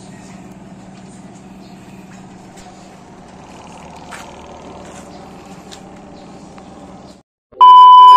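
A steady low hum with a few faint clicks, which cuts off about seven seconds in; then a loud, shrill test-tone beep, the TV colour-bars transition sound, for about a second.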